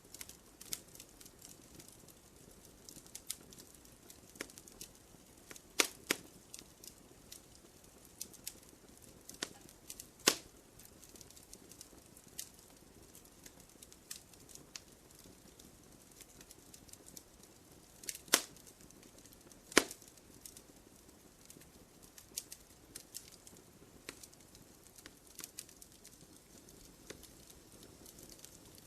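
Wood fire crackling in a fireplace: scattered small snaps over a soft steady hiss, with a few louder pops, two together about six seconds in, one about ten seconds in and two more around eighteen and twenty seconds.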